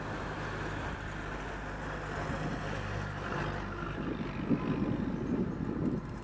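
A vehicle engine running steadily under a dense, noisy rush of air.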